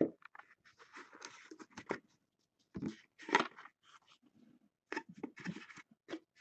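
Hands handling a small metal tin card box: a sharp knock, then irregular scrapes, rustles and clicks as the foam insert is lifted out and the cards are drawn from the tin.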